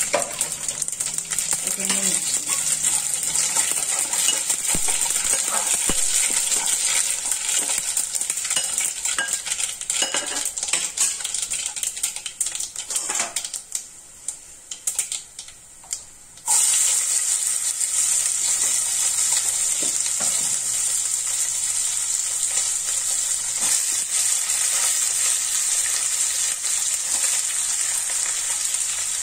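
Mustard, cumin and fenugreek seeds with garlic sizzling in hot oil in a metal pan, with a metal spoon stirring and clicking against the pan. For about three seconds midway the sizzle drops away to a few clicks, then comes back abruptly and runs steadily.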